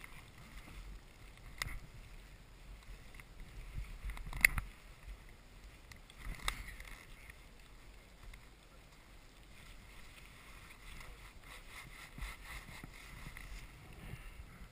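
Alpine ski boot buckles being done up: a few sharp snaps, the loudest about four and a half seconds in, over a faint rustle of handling and light wind.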